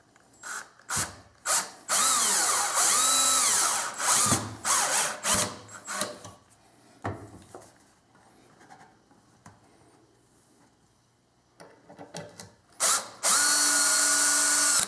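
Cordless drill/driver driving coarse-thread square-drive pocket-hole screws into soft pine. It goes in short trigger bursts and a longer run whose motor pitch rises and falls, pauses, then runs steadily for about a second and a half near the end.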